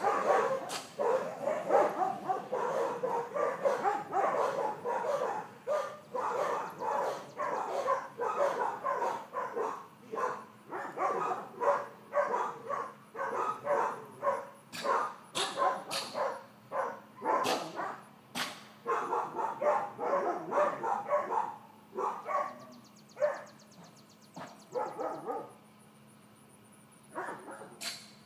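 A 4-month-old miniature dachshund puppy barking and yipping over and over, about once a second, dying down near the end.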